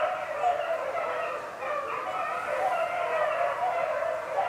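A pack of beagles baying together, several voices overlapping without a break: hounds in full cry, running a rabbit's trail.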